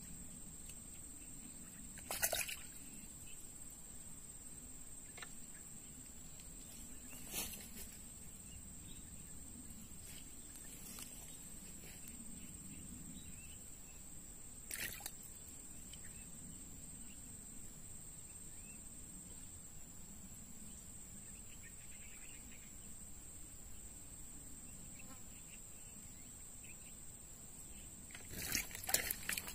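Quiet outdoor ambience over floodwater: a steady high-pitched whine over a low background hum, broken by brief sharp clicks or splashes about 2, 7 and 15 seconds in and a short cluster of them near the end.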